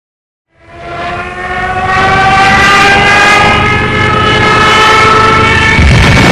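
Intro sound effect under the title card: a swelling tone that fades in and slowly rises in pitch over a rumble, turning to a heavier rumble near the end.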